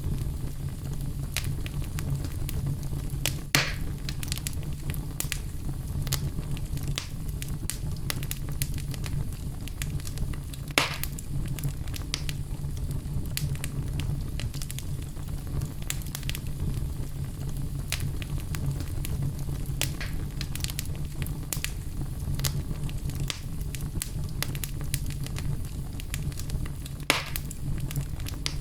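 Wood fire burning in a fireplace: a steady low rumble of flames with frequent small crackles and three louder pops.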